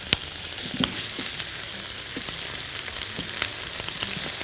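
Pieces of boiled beef shank searing in a hot pan, sizzling steadily with scattered pops and a few sharp clicks. The meat has just been turned so that its second side browns.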